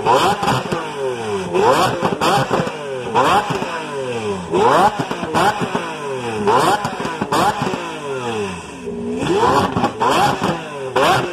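Lamborghini Aventador's V12 engine revved hard again and again, pitch climbing quickly and falling back about every one and a half seconds. Sharp cracks mark the tops of the revs.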